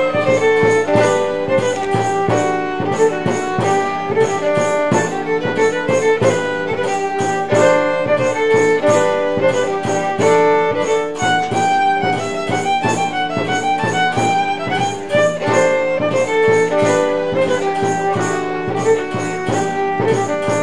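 Music with a bowed violin melody over a steady rhythmic accompaniment.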